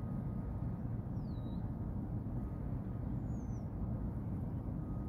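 Low, steady rumble of a large cargo ship passing under way, with two faint, short bird calls, one about a second in and one about three seconds in.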